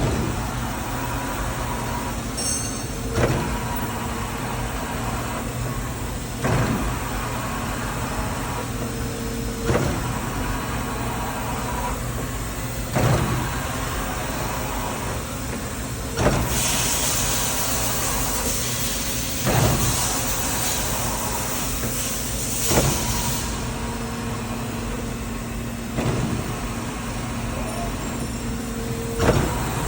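Makino A66 CNC horizontal machining center running under power: a steady hum with a short knock repeating about every three seconds. A loud hiss comes in about halfway through and lasts around seven seconds.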